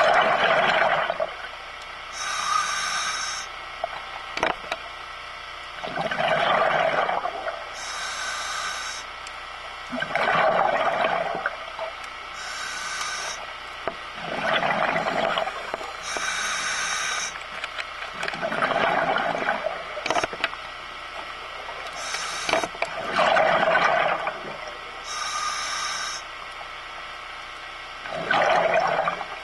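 Scuba breathing through a regulator underwater: a hiss on each inhalation, then a gurgling rush of exhaled bubbles, repeating in a steady cycle about every four to five seconds.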